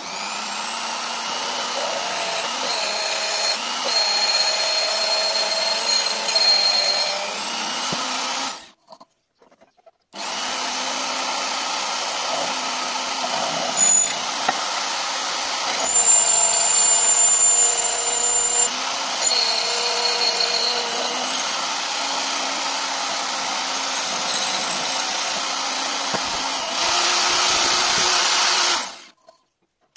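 Small benchtop drill press running and drilling into a metal bar. The motor stops about nine seconds in, starts again about a second later, and stops near the end, with a thin high whine coming and going over the motor noise.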